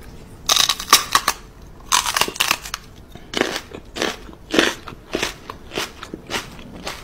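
Crunching, munching noises of a person pretending to chew on a dog's snout, coming in bursts that grow shorter and quicker near the end.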